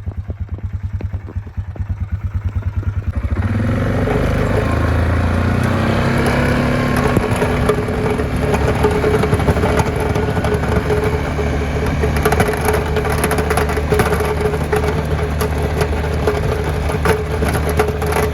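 A 2013 Yamaha Kodiak 450 ATV's single-cylinder engine idling with an even pulse, then picking up about three seconds in and running steadily under load in low range as its plow blade pushes wet, heavy snow. A coarse scraping rush of snow against the blade runs under the engine once it is moving.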